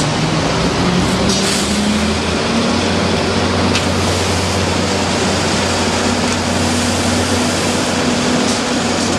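A police WaWe 10000 water cannon truck runs its heavy engine, which revs up over the first couple of seconds, alongside the steady rushing hiss of its water jet spraying onto a fire.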